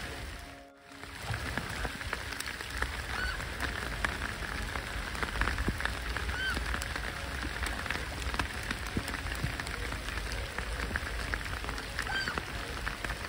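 Steady rain falling on lake water, a dense patter of small drop ticks. A few brief, faint calls sound over it.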